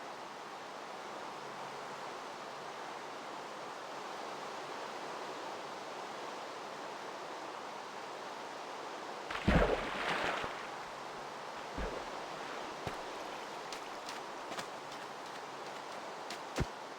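Water fountain splashing steadily. About halfway in there is a louder burst of thumps and rustling, and a few short knocks follow near the end.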